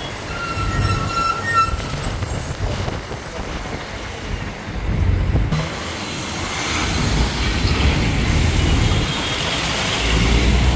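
Traffic and engine rumble from the open top deck of a moving double-decker bus, with wind noise on the microphone. A thin, high, several-toned squeal sounds over the first two seconds.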